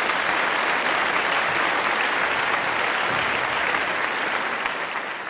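Crowd applauding, a steady dense patter of many clapping hands that fades out near the end.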